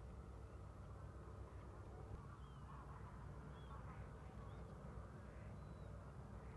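Faint, distant waterbird calls: short high chirps about once a second from a couple of seconds in, with softer lower calls, over a low steady rumble.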